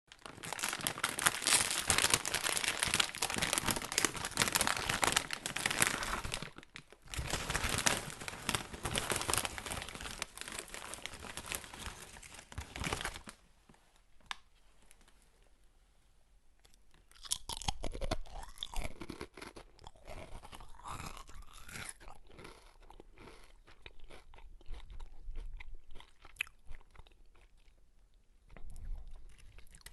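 A person crunching and chewing chips close to the microphone: dense, loud crunching with a brief pause about six and a half seconds in, then from about halfway through quieter, sparser crunches and chewing.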